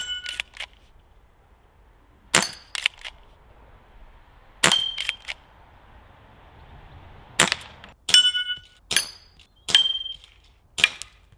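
Umarex RP5 CO2 pump-action air rifle firing a string of shots. About a dozen sharp cracks come singly or in quick pairs, several followed by a short metallic ring.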